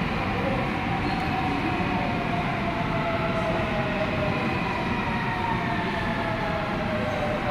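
Seoul Subway Line 8 train pulling into the station behind the platform screen doors: a steady rumble of wheels on rail under a whine from the electric traction motors, which slowly falls in pitch as the train brakes.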